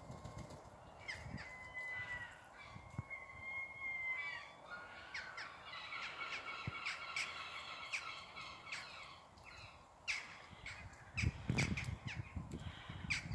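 Bird calls: a couple of drawn-out, clear calls about a second in and again around three to four seconds, then a longer run of calls in the middle, with a few faint low thuds near the end.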